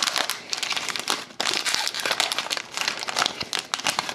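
Sealed hockey card pack being opened: its wrapper crinkles and crackles with a dense run of quick clicks, then stops near the end.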